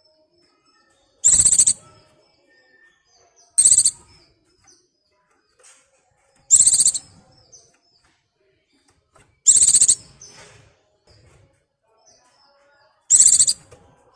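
A white-eye (pleci) in breeding condition calling for a mate: five short, high-pitched bursts of call, each about half a second long and two to three seconds apart, with faint chirps in between.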